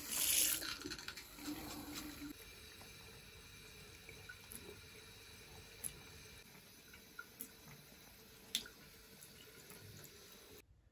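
Thin stream of water running from a bathroom tap into a ceramic sink: a steady, quiet splashing, louder for the first couple of seconds, with a few faint sharp ticks. It cuts off abruptly near the end.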